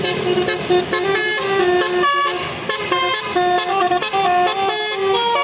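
Indonesian bus telolet horn playing a quick melody: a series of loud horn notes stepping rapidly from pitch to pitch.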